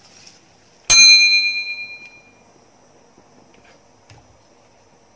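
A single bright metallic ding, struck once and ringing out with a bell-like tone that fades over about a second and a half.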